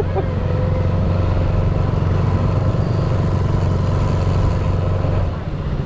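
Motorcycle engine running steadily under way, with wind and road noise; the engine note drops off slightly about five seconds in.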